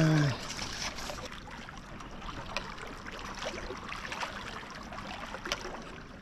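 Steady wash of sea water against a breakwater, with a few faint clicks.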